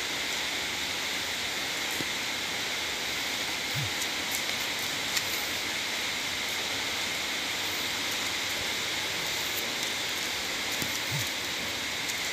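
Steady hiss of rain, with a few faint ticks.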